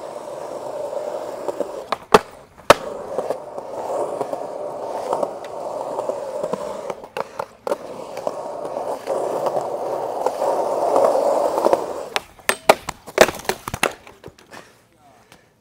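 Skateboard wheels rolling on concrete, broken by sharp board clacks from tricks about two seconds in and again in the middle. Near the end, a quick run of clattering knocks as the skater falls and the board skids away.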